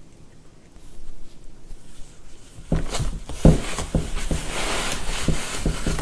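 Cardboard knocking and scraping as a cat squeezes through a hole cut in a cardboard panel: a few soft knocks about three seconds in, the loudest a moment later, then a scratchy rustle that stops right at the end.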